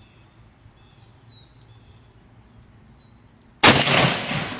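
A single M1 Garand rifle shot about three and a half seconds in, sudden and loud, with an echo trailing off for about a second. Faint bird chirps before it.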